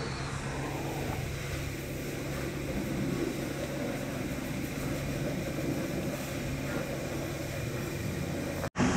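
A machine's motor running steadily, a low droning hum that cuts out for an instant near the end.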